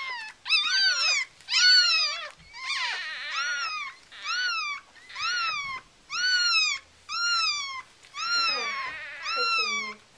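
Newborn Yorkshire Terrier puppies crying: a string of high-pitched cries, about one a second, each rising and then falling in pitch.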